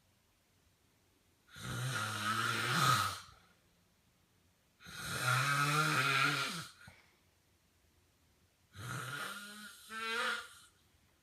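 A man snoring in his sleep: three long snores about three and a half seconds apart, the last one broken into two parts.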